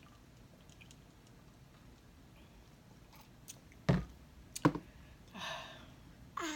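Faint mouth clicks from sipping and eating, then two sharp knocks, about four and four and a half seconds in, as drinking cups are set down on the table.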